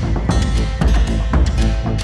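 Background music with a steady, heavy beat.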